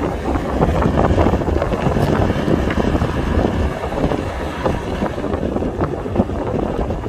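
Caterpillar 312 excavator's diesel engine running steadily under load as the arm and bucket move over the dump truck, with wind noise on the microphone.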